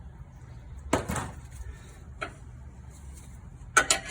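Metal knocks and clinks as a strut bolt is worked straight out of the steering knuckle: one sharp knock about a second in, a faint click, then a quick run of clinks near the end.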